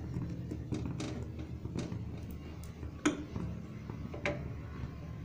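A spoon stirring a thick jaggery syrup packed with peanuts and roasted chana in a pan, with a few light clicks and scrapes of the spoon against the pan over a low steady hum.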